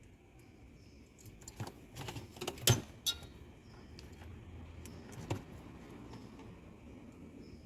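Scattered small clicks and metallic clinks of multimeter test leads and wires being handled against a fridge's defrost heater terminals during a continuity check. The sharpest clink comes a little under three seconds in, over a low steady background.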